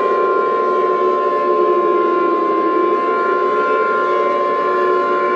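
Tornado warning siren wailing, slowly shifting in pitch, under a steady high single-pitch alarm tone, as in an Emergency Alert System warning broadcast.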